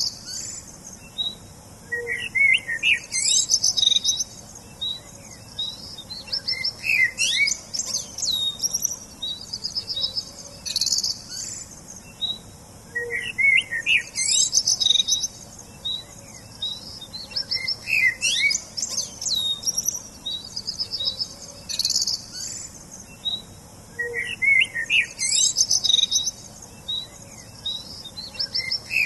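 Songbirds chirping and singing in short, high, rapid trills and chirps. The same cluster of phrases comes back about every five to six seconds.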